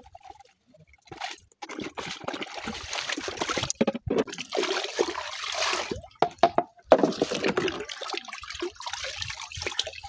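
Plastic cups and jugs being washed by hand in buckets of water: irregular sloshing, pouring and dripping, with sharp knocks of plastic against plastic.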